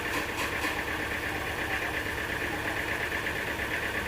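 An engine running steadily with a fast, even throb, a few short clicks about half a second in.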